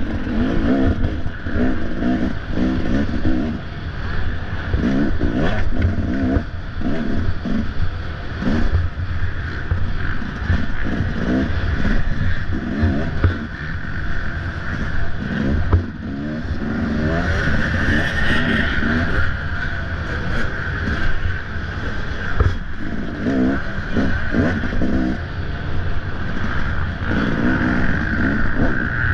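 Off-road dirt bike engine revving up and down repeatedly as the rider works the throttle through the course, with occasional sharp knocks and rattles from the bike.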